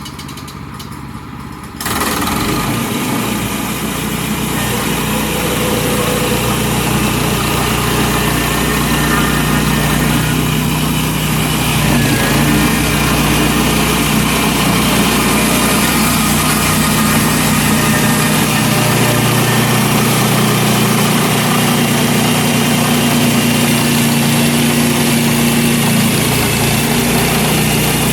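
Gas engine of a portable bandsaw sawmill throttling up sharply about two seconds in, then running steadily under load as the band blade makes a cut through a red maple log.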